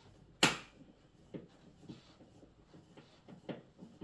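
A sharp click about half a second in, then light scattered knocks and taps: a metal radiator wall bracket and its screws being handled and set against the wall by hand.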